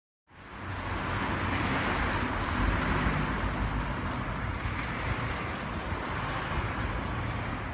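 Steady outdoor noise with a low rumble and an even hiss, fading in just after the start and ending abruptly at the close.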